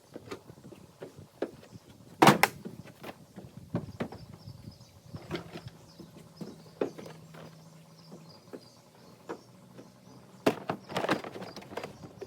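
Scattered knocks and clunks of gear being handled, the loudest about two seconds in and a cluster near the end, with a faint low hum for a few seconds midway.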